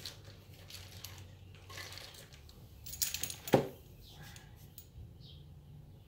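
Metal garage door opener hardware being handled and set down on a plywood board: a few light clinks and knocks, the loudest about three and a half seconds in.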